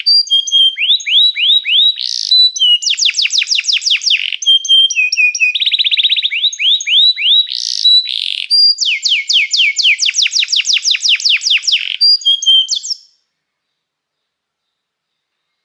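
Domestic canary singing: a song of rapid trills, each a string of quick downward-sweeping whistled notes, one trill after another with short chirps between them. The song stops abruptly near the end.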